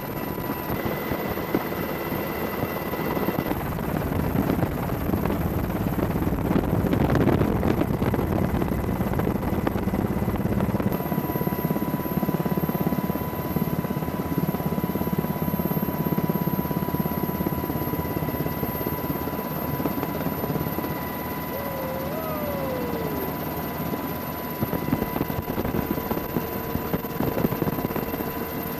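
Helicopter rotor and turbine noise heard from aboard the aircraft filming, a steady drone with a constant whine over it.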